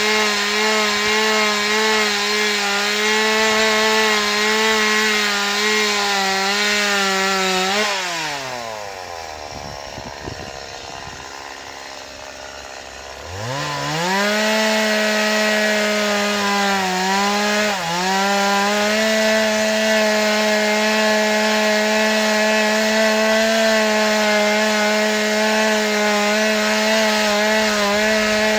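Stihl MS 180 two-stroke chainsaw running at high revs. About eight seconds in the engine falls back to idle for several seconds, then revs back up to full speed and holds there, with one brief dip in revs.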